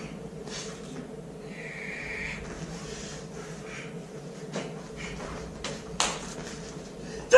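A martial artist's steps and strikes during an empty-hand form: soft movement noises over a steady hum, with one sharp snap about six seconds in.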